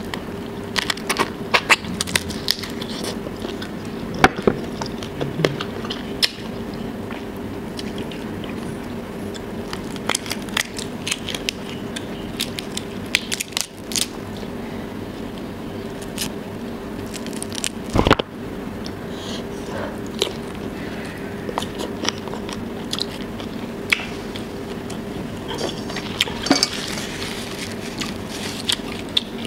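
Close-up eating sounds of giant tiger prawns: biting and chewing, with irregular sharp crackling clicks as the shells are torn apart by hand. A steady hum runs underneath.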